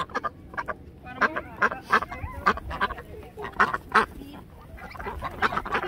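Domestic ducks, white Pekin-type, quacking: a busy run of short quacks, several a second, overlapping.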